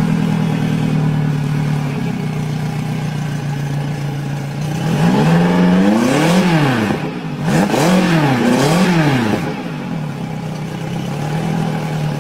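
Engine running steadily, revved up and back down about four times in quick succession in the middle, then settling back to a steady run.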